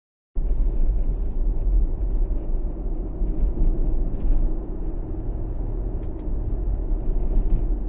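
Steady road noise inside a moving car: a low rumble of tyres and engine that begins abruptly a moment in and holds even.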